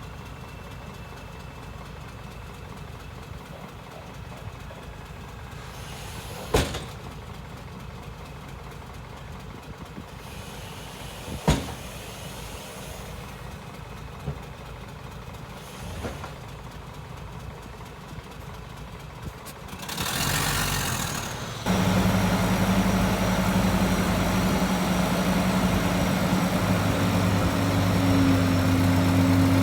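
Heavy diesel engine of earthmoving machinery idling low, with two sharp knocks. About two-thirds through, a hiss with a falling whistle comes in, then the engine suddenly runs much louder and steadier, its pitch rising slightly near the end.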